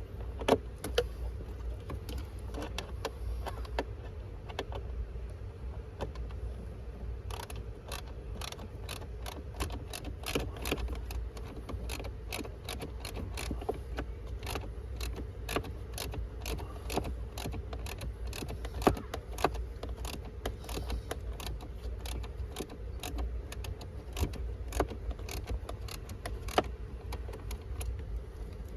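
Metallic clicks and rattles of hand tools and parts as a replacement blower motor is fitted in place, sparse at first and coming several a second from about seven seconds in, over a low steady hum.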